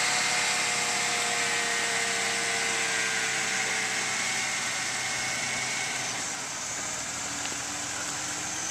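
Car engine running as the car pulls away, its note sinking a little and the sound slowly fading with tyre and road hiss.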